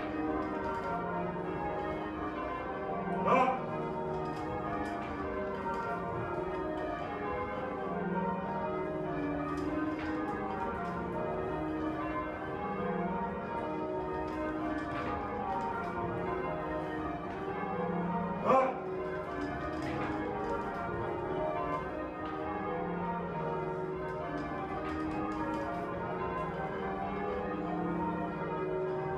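Tower bells being rung in changes: a steady, evenly paced run of church bell strikes at several pitches, each one ringing on. Twice, about fifteen seconds apart, a brief louder sharp sound stands out over the ringing.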